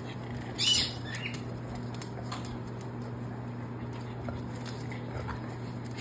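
Sulphur-crested cockatoo gives a short, high-pitched squawk just under a second in, then a softer call, with scattered faint clicks over a steady low hum.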